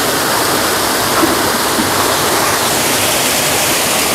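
Steady rush of fast-flowing water through a crowded carp harvesting pond, with splashes from thrashing carp.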